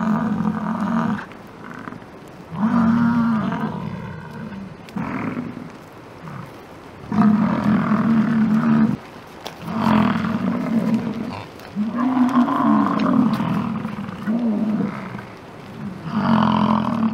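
American bison bulls bellowing in the rut: about seven long, deep roaring bellows, one every two to three seconds, from more than one animal.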